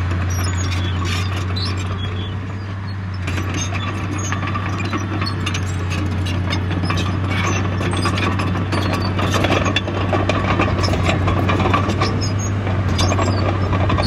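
Bulldozer working: its diesel engine runs with a steady low drone while the steel crawler tracks clank and squeak, the clatter growing busier a few seconds in.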